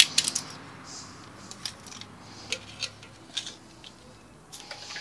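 Metal tongs clicking and tapping against the cooking grate of an open Big Green Egg kamado as a smoked pastrami is picked up: a scattering of sharp, light clicks.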